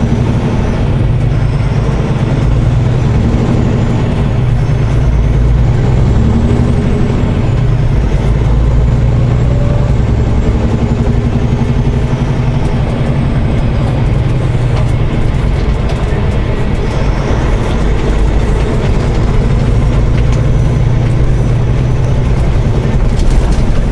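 Semi truck's diesel engine and road noise heard from inside the cab while driving, a steady low drone.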